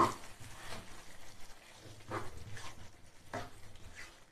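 Spatula stirring thick paneer butter masala gravy in a non-stick pan: a sharp knock at the start, then a few soft scrapes and squelches.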